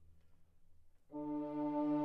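Background instrumental music. A low held note dies away, then about a second in a sustained chord comes in.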